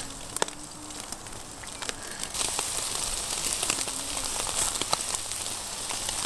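Shashlik skewers of meat grilling over hot charcoal: a steady sizzling hiss with many sharp crackles and pops from fat dripping onto the coals, growing louder about two seconds in.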